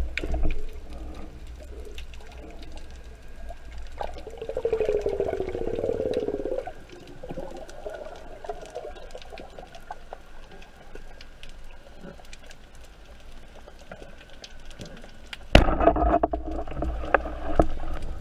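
Underwater sound picked up by a camera in its housing: a low rumble with a steady scatter of sharp crackling clicks. About four seconds in comes a muffled creaking sound lasting a couple of seconds, and near the end a sudden louder, rumbling commotion.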